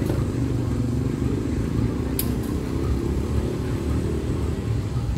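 Diesel engine of a standing passenger train running at idle: a steady low rumble. One sharp click comes about two seconds in.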